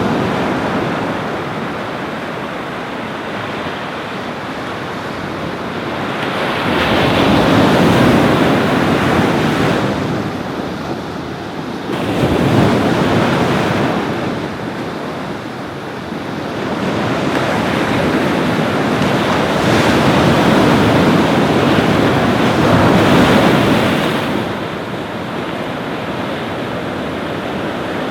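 Ocean surf breaking on a beach, a continuous rush that swells and eases every few seconds as waves come in.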